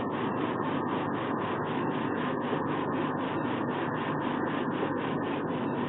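Steady rushing background noise on the falcon nest-box webcam's microphone, with no calls from the bird.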